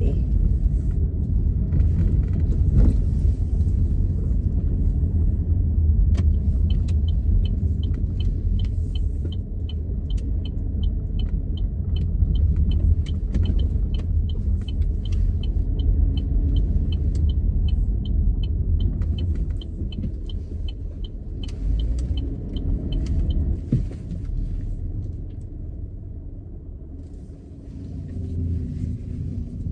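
Steady low road and engine rumble inside a moving car. From about six seconds in, for some seventeen seconds, the turn-signal indicator ticks at about two ticks a second.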